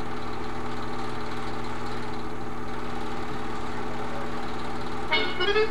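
Home-movie film projector running with a steady mechanical hum. About five seconds in, music starts up over it.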